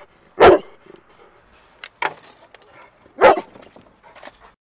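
Search-and-rescue dog barking a find alert: two loud barks, about half a second and three seconds in, with a shorter, quieter bark between them. The barking signals that the dog has located the strongest scent of a person buried in the rubble.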